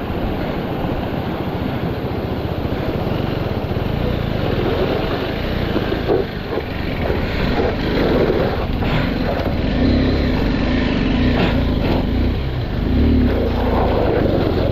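Meltwater stream rushing over rocks, with a KTM 390 Adventure X's single-cylinder engine running through the crossing. The engine is revved up a couple of times in the second half.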